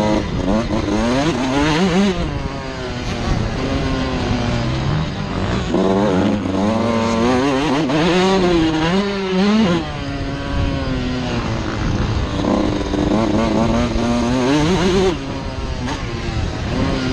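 Suzuki RM125 two-stroke single-cylinder motocross engine heard from the rider's helmet, revving up and dropping off repeatedly as the throttle is worked through the gears, with a sharp drop in pitch about fifteen seconds in.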